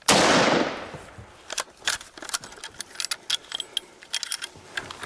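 A single shot from a scoped bolt-action rifle, loud and sudden, its report dying away over about a second. It is followed by a run of sharp metallic clicks and rattles as the rifle is handled after the shot.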